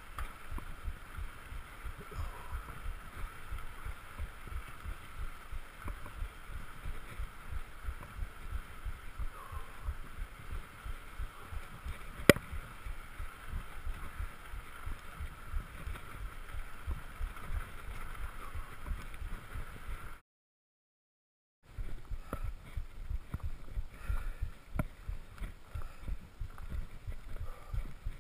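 Handlebar-mounted action camera in its housing picking up the bumpy rumble of a Surly Krampus mountain bike rolling over a sandy dirt track, with one sharp knock about twelve seconds in. The sound cuts out for about a second and a half two-thirds of the way through.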